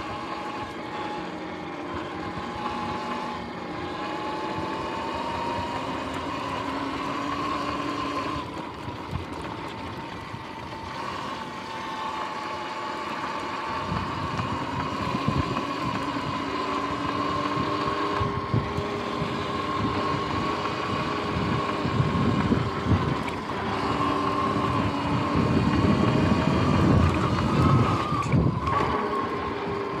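Sur-Ron X electric dirt bike riding along, its motor and drivetrain giving a steady whine whose pitch wavers with speed, over wind and tyre noise. The low wind rumble grows louder from about two thirds in.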